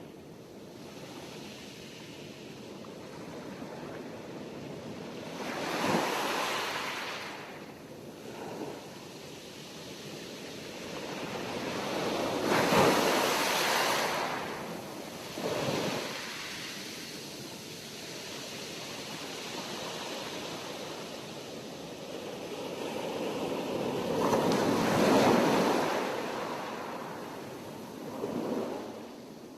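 Sea waves breaking and washing ashore, rising and falling in slow surges several seconds apart; the three biggest break about a fifth of the way in, near the middle, and past three-quarters, with smaller washes between.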